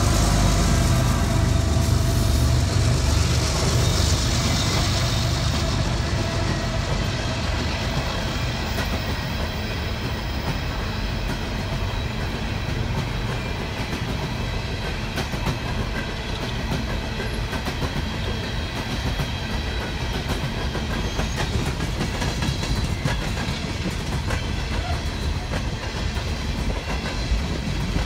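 Freight train passing: the diesel-electric locomotives' engines rumble by at first, loudest at the start and fading over the first several seconds. Then a long string of coal cars rolls past with steady wheel noise and repeated clicks over the rail joints.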